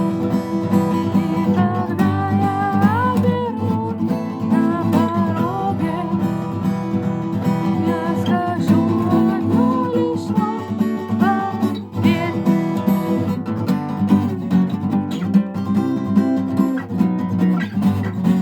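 Acoustic guitar strumming chords steadily, with a voice singing a melody over it.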